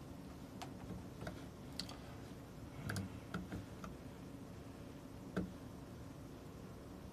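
Scattered light clicks and taps, about nine at irregular spacing, with a duller knock about three seconds in and the sharpest click a little after five seconds, over faint room hiss.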